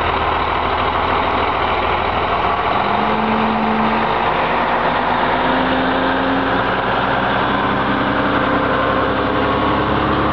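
Heavy-haul semi tractor's diesel engine running under load as it pulls an oversize trailer slowly past at close range. A loud, steady engine note that climbs slightly in pitch a few times.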